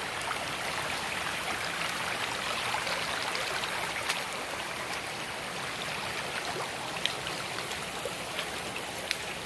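Shallow rocky stream running over and between boulders: a steady sound of flowing water.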